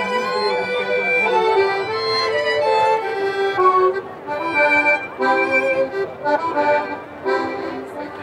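A live folk band with fiddles playing a lively traditional Polish tune, one held note after another in a running melody.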